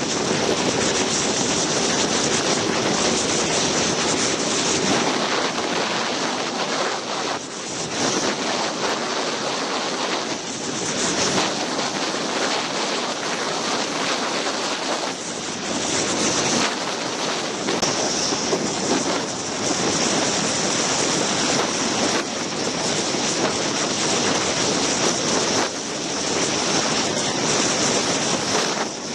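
Wind rushing over the microphone of a camera riding on a moving motorcycle: a steady noise that rises and dips a little, with the bike's running and road noise buried under it.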